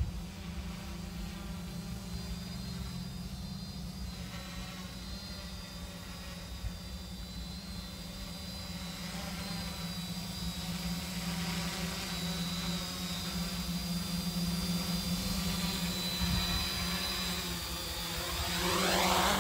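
Small quadcopter's four electric motors and propellers buzzing steadily in flight. Near the end the sound swells and shifts in pitch, then cuts off suddenly.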